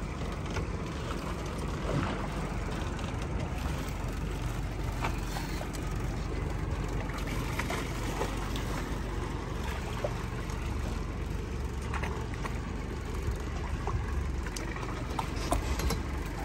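Boat engine idling, a steady low rumble, with water sloshing against the hull and a few faint clicks.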